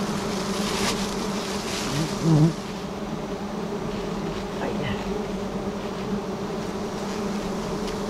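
A dense swarm of honey bees buzzing steadily around their hive as the comb is being cut. A brief louder sound comes about two seconds in.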